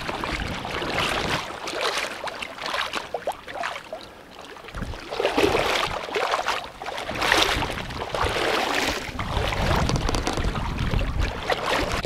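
Water sloshing and splashing around a person's waders as he wades through waist-deep sea water, swelling and fading unevenly with his strides.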